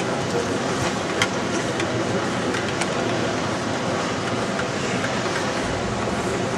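Model train running along a layout's track: steady running noise with a few sharp clicks, the loudest a little over a second in.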